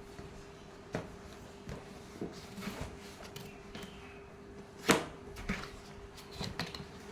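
Handling noises: a series of knocks and clicks as objects are moved and set down, the loudest knock about five seconds in, over a steady faint hum.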